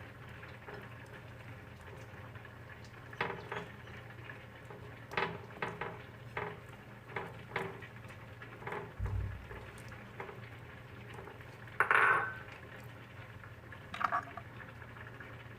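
Kitchen utensils and dishes knocking and clinking, a dozen or so light irregular knocks, with a louder ringing clink about twelve seconds in and a dull thud a little before it. A steady low hum runs underneath.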